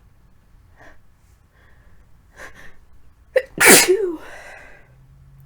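A woman with a cold sneezes once, loudly, about three and a half seconds in, after a few short catching breaths build up to it; the sneeze ends in a brief voiced tail.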